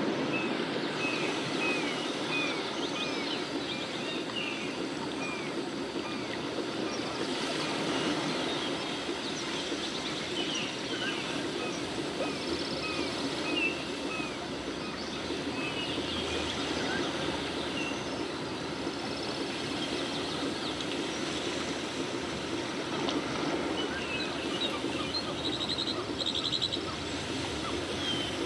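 Outdoor ambience: a steady rushing noise with small birds chirping, a quick run of short repeated chirps in the first several seconds, then scattered calls.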